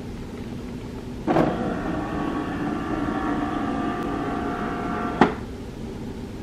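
HP DeskJet 4100-series inkjet printer's motor and mechanism running during its factory reset. It starts with a clunk about a second in, whirs steadily for about four seconds, and stops with a sharp click.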